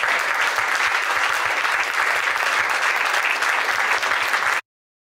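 Audience applauding steadily after a live band number; the applause cuts off suddenly about four and a half seconds in.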